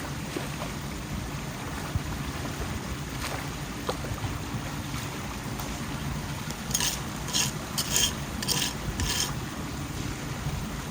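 Steady low rush of floodwater running into a clogged street drain. About two-thirds of the way in come five short scraping sounds about half a second apart.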